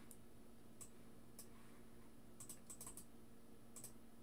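Faint, irregular clicking of a computer keyboard and mouse, about ten short clicks, some in quick pairs, as rows of text are selected and copied.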